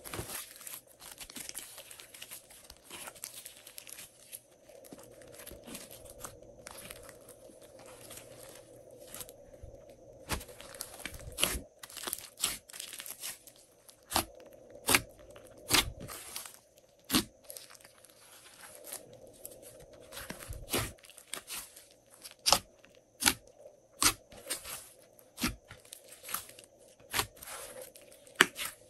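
Hands kneading and squeezing a large mass of glossy slime: wet crackling and tearing, with many sharp pops and clicks that come thicker in the second half.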